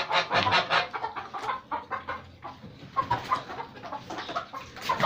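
Domestic goose calling in a quick run of short, clucking honks for about the first second and a half, then fewer, softer calls.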